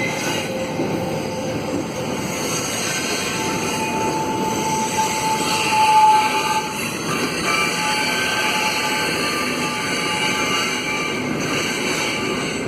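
Double-stack container cars of a Canadian Pacific freight train rolling around a curve, the wheels squealing against the rails in several thin, high tones over a steady rumble. One squeal swells louder about halfway through. The squeal comes from the wheels straining against the rails on the curve.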